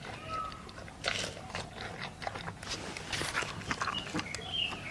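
Giant panda chewing a bamboo shoot: irregular crunching and snapping clicks as the woody shoot breaks between its teeth.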